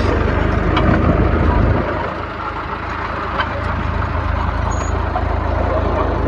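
Bulldozer's diesel engine running steadily, with scattered metallic clanks; it drops a little in loudness about two seconds in.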